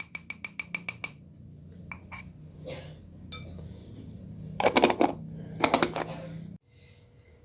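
Light clinks of kitchenware, glass or metal: a fast, even run of about eight clinks a second for roughly a second, then two short clusters of clinks near the end.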